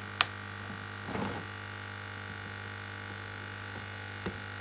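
Hot air rework station's blower running with a steady hum, with a sharp click about a quarter second in and another near the end.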